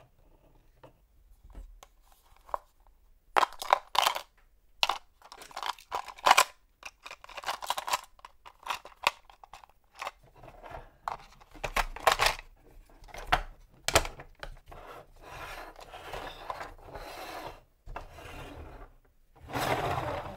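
A hard plastic Disney Cars Red fire truck toy and its accessories being handled, with a string of sharp clicks, knocks and scrapes starting a few seconds in. Near the end comes a longer, louder scraping rumble as the truck is pushed across the table.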